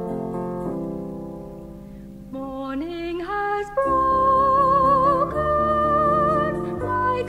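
Salvation Army gospel song: a keyboard accompaniment plays held chords, then a singer with a wide vibrato comes in about two and a half seconds in and sustains long notes over the accompaniment.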